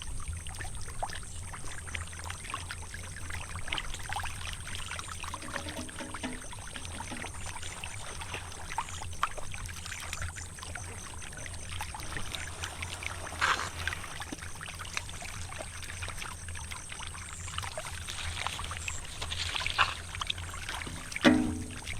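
Muddy water sloshing and trickling, with many small wet clicks and crackles and a few louder splashes, the loudest near the end. A low steady hum runs underneath.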